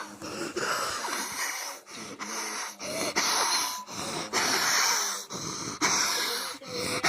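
A person wheeze-laughing: a string of breathy, hissing gasps, each about a second long with short breaks between.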